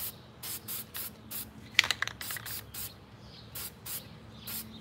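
Aerosol spray-paint can hissing in a quick series of short bursts as paint is sprayed onto a fishing rod blank, a few bursts a second at times. A brief, sharper clatter about two seconds in is the loudest sound.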